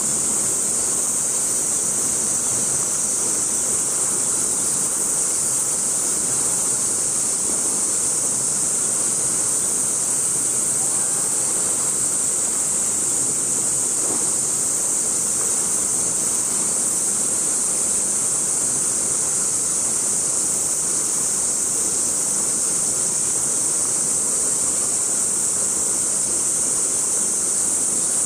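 A steady, unbroken high-pitched chorus of cicadas droning.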